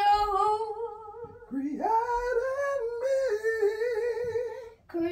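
A child singing a slow gospel line unaccompanied, holding long notes with vibrato. After a short break about a second and a half in, the voice slides up into a long held note with a wide vibrato.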